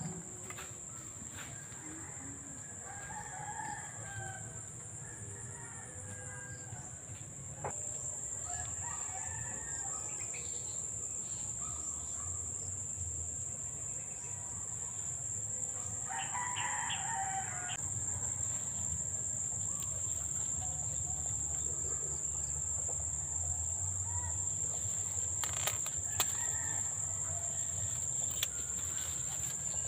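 A rooster crows once, about halfway through, over a steady high-pitched drone of insects that runs throughout.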